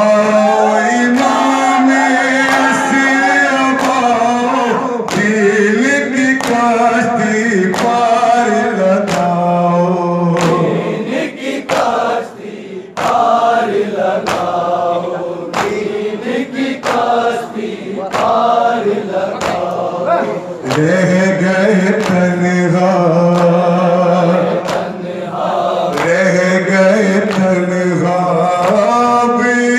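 A man recites an Urdu noha (Shia mourning lament) through a microphone and PA, and a group of mourners chants along with him. Matam runs under it: open hands slap chests in a regular beat, about every three-quarters of a second.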